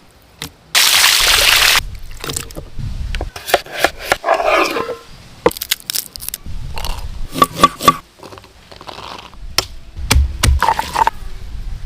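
Food-preparation handling sounds: a loud rushing hiss lasting about a second near the start, then a run of sharp clicks, knocks and scraping.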